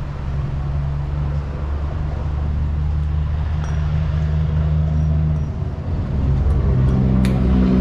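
A motor vehicle's engine running steadily with a low hum, its pitch shifting about six seconds in, with a few sharp clicks near the end.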